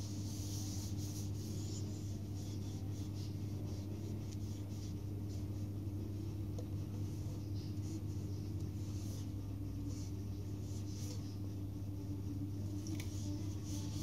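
A cloth rubbing and wiping over the wooden body of a sopranino ukulele, in uneven scratchy strokes, over a steady low hum from a running ceiling fan.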